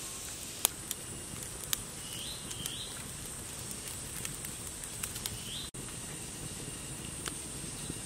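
Wood campfire crackling, with a few sharp isolated pops, over a steady high-pitched background hiss and three short bird chirps.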